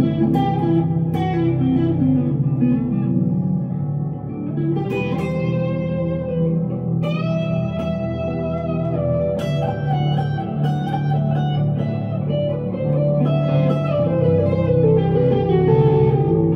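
1965 Fender Stratocaster electric guitar played through an amplifier: a slow, unaccompanied line of single notes and chord tones over held low notes, each note ringing out.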